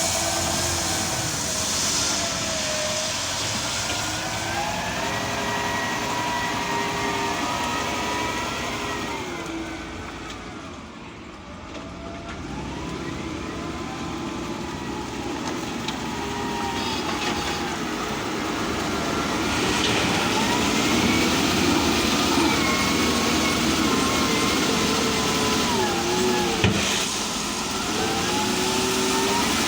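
Bulldozer engine running, its pitch rising and falling repeatedly as it works, easing off briefly about a third of the way in. There is a single sharp knock near the end.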